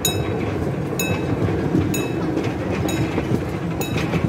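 Panoramabahn park railway train running along its track with a steady rumble, and a sharp, ringing metallic click about once a second as the wheels pass over the rails.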